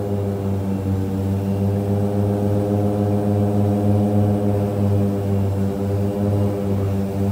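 Cabin drone of a Viking DHC-6-400 Twin Otter's Pratt & Whitney PT6A turboprops and propellers in flight: a steady low hum with many overtones, its pitch wavering slightly.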